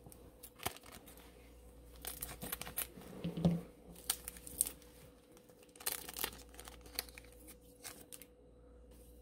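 Foil booster pack of Pokémon cards torn open and crinkled, then the cards slid out and handled: an uneven scatter of sharp crinkles and snaps, busiest in the first half.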